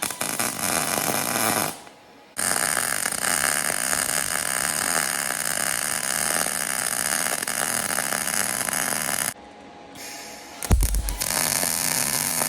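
ESAB Fabricator 141 MIG welder laying wire-feed beads on scrap steel, with a steady frying crackle in three runs: a short one, a long one of about seven seconds, and another short one near the end, which starts with a low thump.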